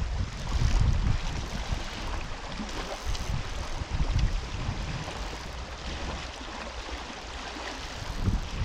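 Wind buffeting the microphone in uneven gusts over the steady rush of river water; the buffeting eases off in the second half.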